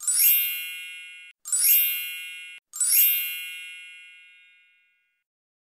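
A bright sparkling chime sound effect played three times, about a second and a half apart, each a quick glittering rise into a ringing ding. The first two cut off abruptly and the last rings out for about two seconds.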